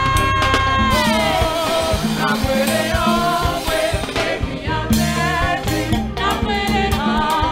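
Live gospel worship music: a woman's voice through a microphone holds a high note, then slides down about a second in, over a band with drums, and the congregation sings along.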